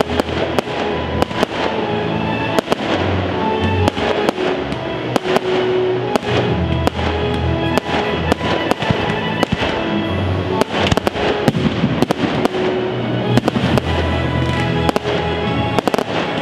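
Aerial fireworks shells going off in a rapid, irregular run of bangs and crackles, over music.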